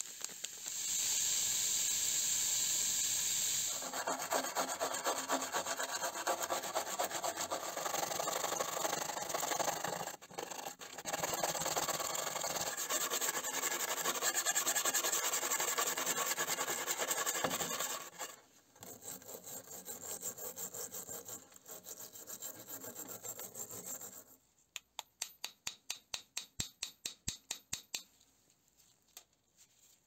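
Stiff brush scrubbing rusty knife blades and parts in soda slurry in a metal sink: fast back-and-forth scraping strokes. The scrubbing dies down about two-thirds of the way through, followed by a run of quick ticks.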